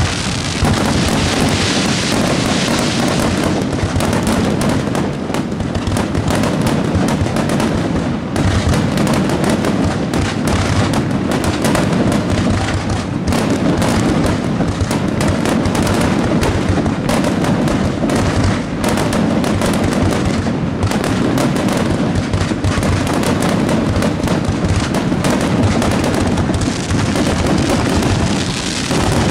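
Fireworks finale barrage: aerial shells bursting in rapid, overlapping succession, a continuous dense crackle and banging with no gap.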